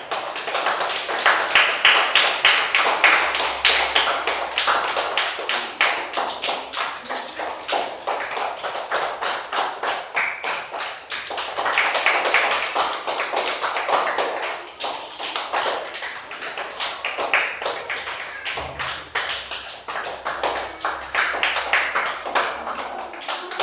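A group of children clapping their hands, a fast, steady run of sharp claps.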